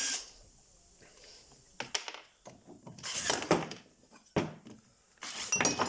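A few sharp knocks and clinks of chainsaw engine parts and tools being handled as screws are taken out, with a short metallic ring near the end.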